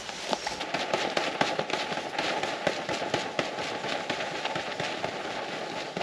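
Water drops pattering on a tarp and wet leaves after heavy rain: a dense, irregular run of small sharp ticks.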